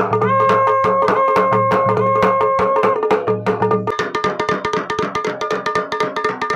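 Dhol and damau drums played fast in a dense, driving rhythm over long held tones from a ransingha horn. The lowest part of the held sound drops out a little past halfway while the drumming carries on.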